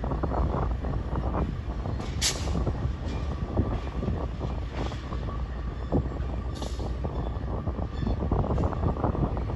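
Freight train rolling past: a steady low rumble with irregular clatter of wheels over the rail, and two brief high-pitched squeals, one about two seconds in and one past the middle.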